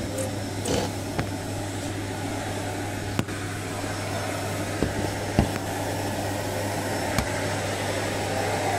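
Steady hum and rush at a gas cooktop where a large clay pot is boiling on a lit burner. A few sharp clicks and taps come through it, the loudest about five and a half seconds in.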